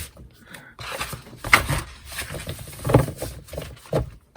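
Sheets of printed paper being handled and shuffled, rustling, with a few short irregular knocks as they are set down and turned over.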